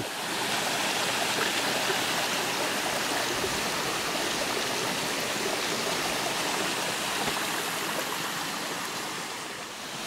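Small waterfall pouring over a rock ledge into a shallow rocky pool: a steady rush of water that eases a little near the end.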